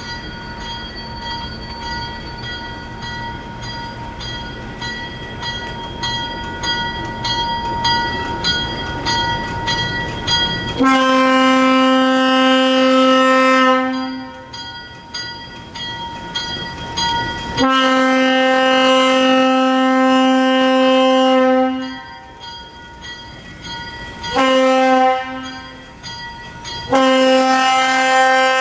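Leslie AS200 air horn on ex-Western Maryland ALCO diesel switcher 151, sounding one steady note in the grade-crossing pattern of long, long, short, long, starting about a third of the way in. Before the horn, the locomotive bell rings steadily over the diesel as it comes closer.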